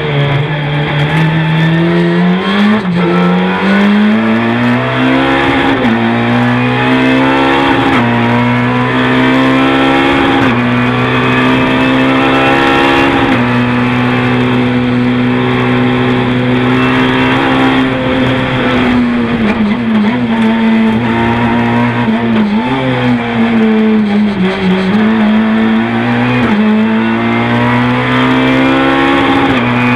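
Renault Clio 3 rally car's four-cylinder engine heard from inside the cabin, pulling hard through the gears with a sharp drop in revs at each upshift. It holds high revs for several seconds mid-way, then eases off and downshifts before pulling again near the end.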